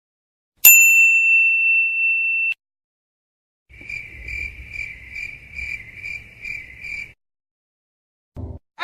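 Two sound-effect clips. First, a single bell-like ding that rings for about two seconds and cuts off. Then a high, cricket-like chirp that pulses about three times a second for about three and a half seconds over a faint low rumble.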